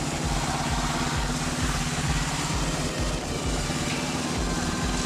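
Motorcycle engine running steadily at low speed under way, with wind and road noise on an onboard microphone.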